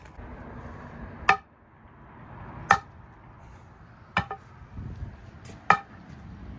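Sledgehammer striking the top of a concrete-filled steel pipe bollard four times, about a second and a half apart, each blow a sharp metallic clank with a short ring. It is tapping the bollard down into its cored hole because it sits a little high.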